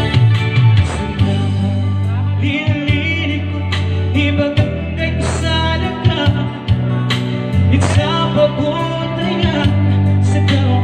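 A man singing into a microphone over electronic keyboard accompaniment with steady held bass notes.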